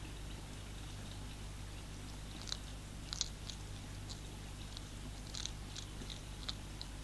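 European hedgehog crunching dry food from a tray: irregular, sharp crunches, mostly from a couple of seconds in, over a steady low hum.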